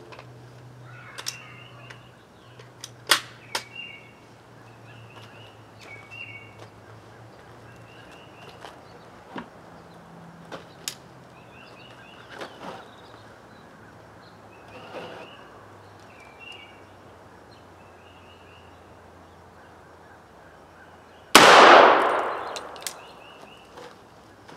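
A single 300 Blackout rifle shot, firing a 230-grain cast lead bullet into ballistic gel: one sharp, loud crack about three-quarters of the way through, tailing off over about a second and a half.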